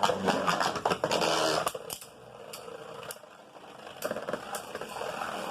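Beyblade spinning tops clashing and grinding against each other in a plastic stadium: a dense scraping clatter for about the first second and a half, then scattered sharp clacks as the tops knock together and rattle.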